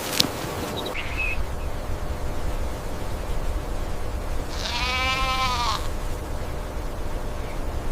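A single bleat-like animal call, a little over a second long, rising then falling slightly in pitch, over a steady low rumble.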